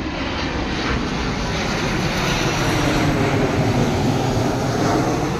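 Jet airliner flying low overhead, its engines making a steady, loud jet noise.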